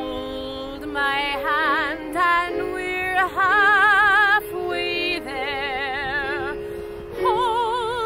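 A woman singing a slow ballad solo, several phrases with wide vibrato on the held notes, over a sustained recorded accompaniment.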